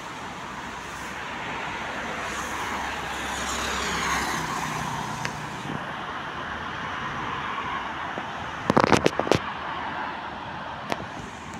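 Road traffic with a car passing by, loudest about four seconds in and falling in pitch as it goes. About nine seconds in comes a quick cluster of sharp knocks, the loudest sounds here, and one more knock near the end.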